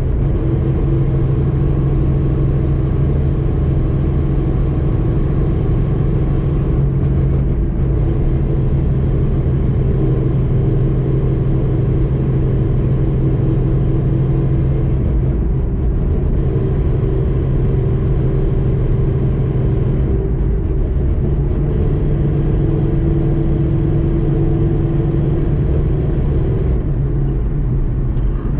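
In-cabin sound of a Ford Mustang Boss 302's V8 and Calimer Stage 3 MT82 six-speed manual transmission at a steady cruise, at an even level and nearly constant pitch. It is the transmission noise of a stage 3 gearbox partway through break-in.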